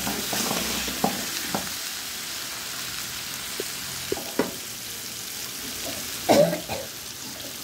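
Chicken pieces in onion-and-masala sizzling as they fry in a wide aluminium pan, stirred with a metal spatula that scrapes and knocks against the pan several times, loudest a little past six seconds in.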